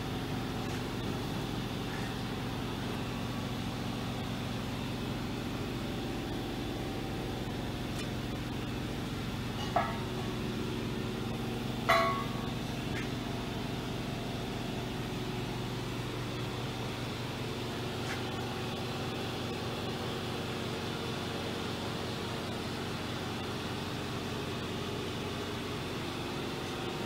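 Steady electrical and mechanical hum of a powered-up DMG Mori DuraVertical 1035eco vertical machining centre and its auxiliary motors, with two sharp knocks about ten and twelve seconds in.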